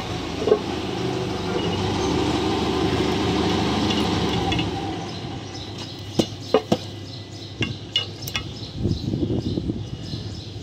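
Steady mechanical noise that fades after about five seconds, then several sharp metallic clicks and knocks as a bolt is fitted into a hole in a steel flange.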